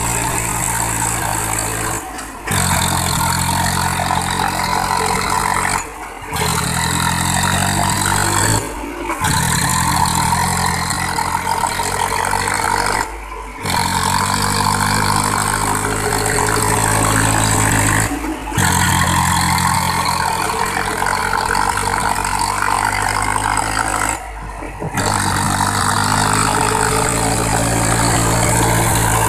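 Massey Ferguson 7250 DI tractor's three-cylinder diesel engine running loud and steady as the tractor strains with its rear wheels stuck in mud. The sound drops out briefly six times.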